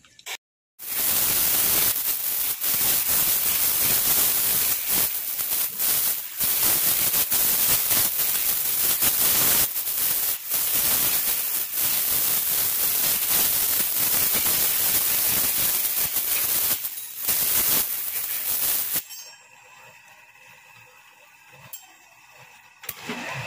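A loud, steady hiss with a few brief dropouts that cuts out about 19 seconds in, leaving a low background.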